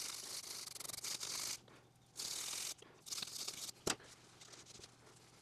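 Small wire brush scrubbing the end face of an aluminium hammer head, a scratchy rubbing in three bouts, the first and longest then two short ones. A single sharp click about four seconds in.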